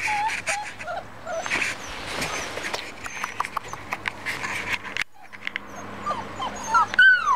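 Bernese mountain dog puppies whimpering and yipping in short, high whines, with a louder drawn-out yelp near the end. Small clicks and rustles sound between the cries.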